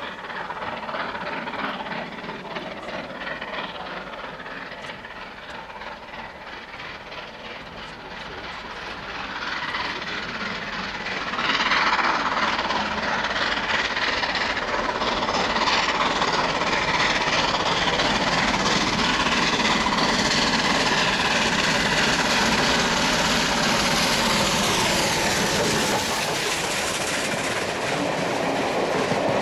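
Bulleid Battle of Britain class steam locomotive 34067 Tangmere approaching and growing louder until it passes close by about twelve seconds in. Its train of coaches then rolls past, wheels clattering over the rails.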